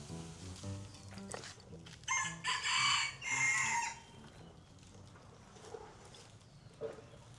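A rooster crowing once, about two seconds in, a call of about two seconds in two parts.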